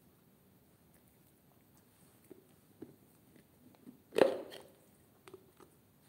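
Cats moving on a wooden tabletop: a few light taps, then one louder knock with a brief scrape about four seconds in.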